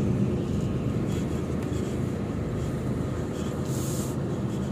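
Lorry's diesel engine running steadily, heard from inside the cab, with a short hiss just under four seconds in.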